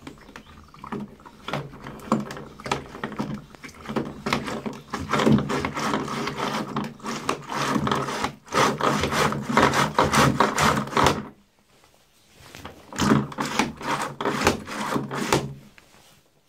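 Thetford portable toilet's hand flush pump being worked over and over, a fast run of clicks and knocks in two long bouts with a pause of about a second between them.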